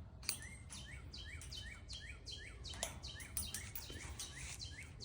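A bird chirping quietly in a rapid, even series of short calls that fall in pitch, about three a second.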